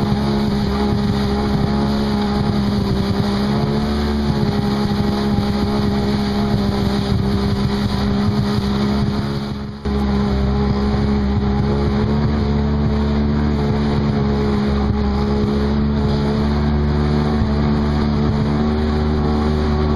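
Jet ski engine running at a steady throttle, a constant drone, with a brief dip in level about halfway through.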